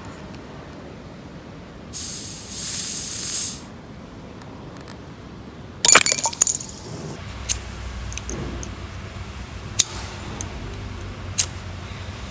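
A glass bottle pried open with the titanium front flipper of a Kizer Catshark knife: a hiss of escaping gas lasting about a second and a half, then the metal cap clinking down about six seconds in, followed by a few light clicks.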